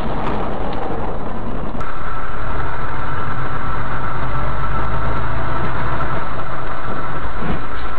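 Vehicle noise heard through a dashcam's microphone. Road and wind noise gives way abruptly, about two seconds in, to a steady low engine hum with a thin high whine over it.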